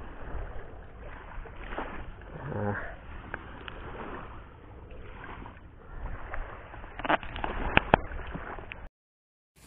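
Outdoor shoreline noise, a steady wash of water and wind, with a few faint voice fragments and several sharp clicks. About nine seconds in, it cuts off suddenly to silence.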